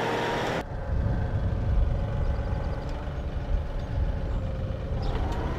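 A John Deere compact tractor's three-cylinder diesel engine runs steadily with a low rumble while its front loader works a pile of soft dirt. Less than a second in, a higher, rising engine whine cuts off suddenly.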